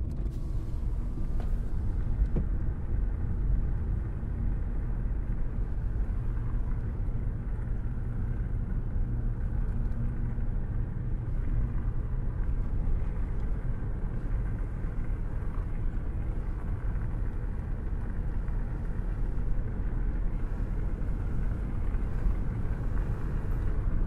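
Car driving along a tarred road, heard from inside the cabin: a steady low rumble of engine and tyres.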